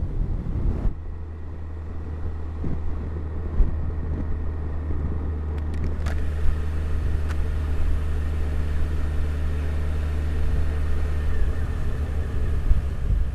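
Yamaha FJR1300 inline-four motorcycle engine running at a steady cruise, a low constant drone with wind and road noise, and a few faint knocks.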